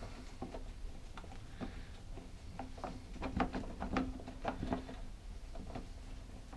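Hand screwdriver turning a screw into a lawnmower's plastic side fairing: a run of irregular small clicks and ticks, busiest in the middle.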